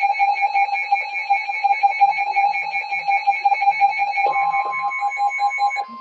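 Emergency weather alert tone: a loud, rapidly pulsing alarm beep, about eight beeps a second, warning of a severe thunderstorm. A steady attention tone joins about four seconds in and keeps sounding after the beeping stops near the end.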